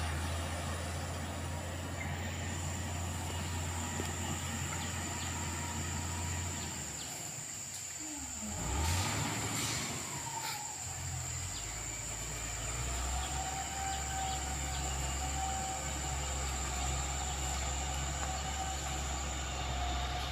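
Motor grader's diesel engine running steadily at a distance as it works the dirt road, a low drone. About nine seconds in it briefly swells louder with a shift in pitch, then settles back to the steady drone.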